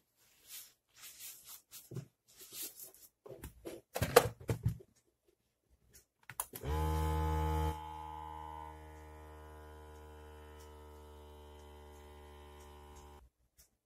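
Rustling and clicks as the blood pressure cuff is handled and wrapped, then the Omron MX2 Basic monitor's small electric air pump starts about six and a half seconds in, inflating the cuff with a steady buzzing hum, louder for the first second and then quieter, before cutting off suddenly near the end. The monitor is running on a 5 V phone charger instead of batteries.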